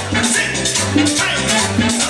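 Loud Latin dance music with a bouncing bass line of short repeated notes and steady shaker and percussion.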